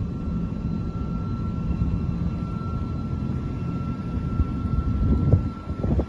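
Rooftop HVAC equipment running: a steady low mechanical hum with a faint, steady high whine over it, and a couple of low thumps near the end.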